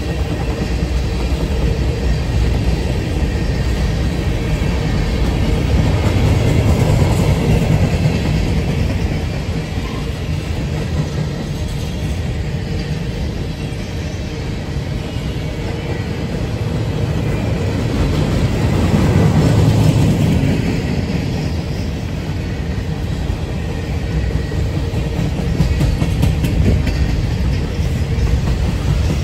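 CSX manifest freight train's cars rolling past: a steady rumble of steel wheels on rail with clickety-clack over the joints. It grows louder about seven seconds in and again about twenty seconds in.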